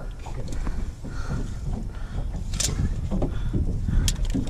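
Wind buffeting the microphone in a low rumble, with a few sharp clicks and light knocks from hands handling a sturgeon and a steel tape measure on the boat deck.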